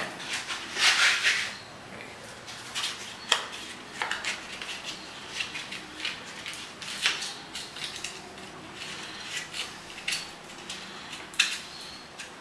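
A sheet of P220 sandpaper being folded and clamped into a hand sanding holder: a crinkling paper rustle about a second in, then scattered small clicks and clinks from the holder's clamps.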